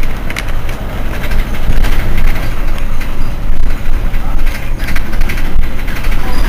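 A Mercedes-Benz Citaro C2 city bus's engine idling while the bus stands still: a loud, steady low rumble with scattered clicks.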